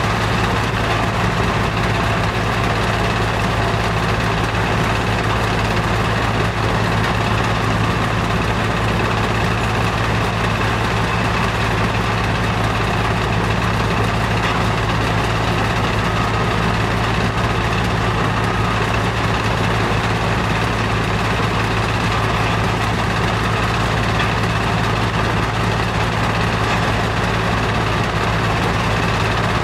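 Sand-washing plant running: a steady, unchanging machinery drone with a strong low hum, from the plant's engine-driven power and the vibrating washing screen and sand screw at work.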